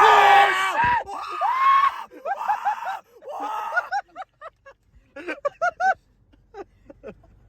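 Young men screaming and yelling with excitement, loudest in the first couple of seconds, then shorter yells and yelps that die away about six seconds in.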